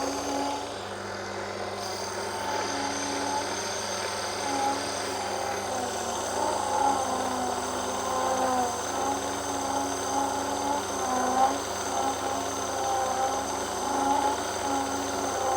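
Small metal lathe running with a steady motor whine while the cutting tool takes light cuts off a brass disc to thin it, the cutting note wavering up and down as the cut goes on.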